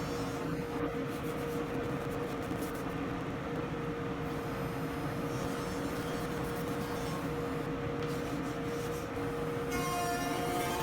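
A machine running steadily: an even noise with one steady tone held throughout.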